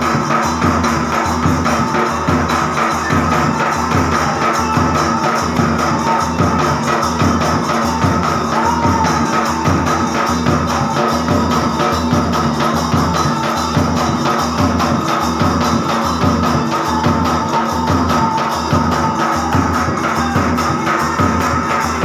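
Live Rajasthani folk music played loud and without a break: a steady, driving drum beat with jingling percussion over it and a few held tones.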